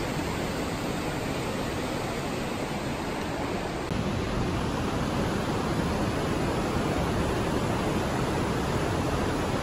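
Steady rush of a mountain river tumbling over boulders deep in a narrow rock gorge, getting a little louder about four seconds in.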